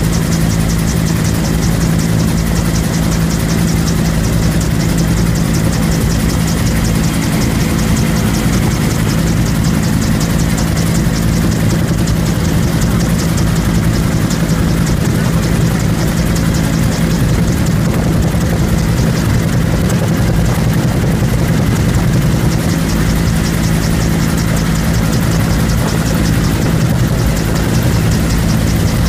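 Bell UH-1 Huey helicopter in flight, heard from inside the cabin: its turboshaft engine and two-bladed rotor running at a loud, steady level, with a low steady drone.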